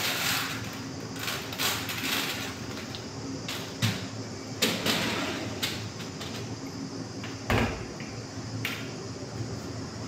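Clicks and knocks of cloths being pulled off the wire racks of a small electric cabinet oven, then its metal door shut with a thump about seven and a half seconds in, over a steady low hum.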